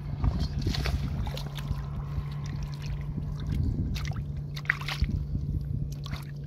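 Hands splashing and squelching in shallow muddy water while feeling for fish, with a few short splashes, over a steady low hum.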